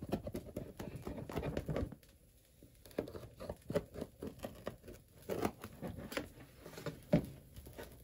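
Knife cutting through a baked pizza's crust: a run of crackling, tearing strokes for about two seconds, then scattered single cuts.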